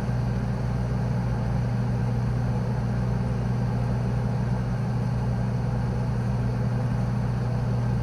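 Morgue freezer hum: a low, continuous mechanical drone with a steady low tone and a faint hiss above it, unchanging throughout.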